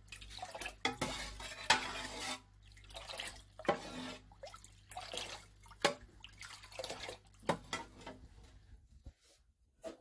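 A long metal spoon stirring liquid in a large pot. The liquid sloshes and splashes, with sharp clinks of the spoon against the side of the pot every second or two. It stops about nine seconds in.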